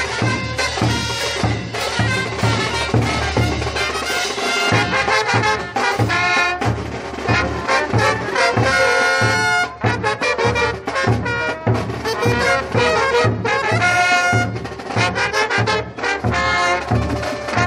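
Bolivian brass band playing live: trumpets and other brass horns carry the tune over a regular beat of bass drum, snare drum and cymbals.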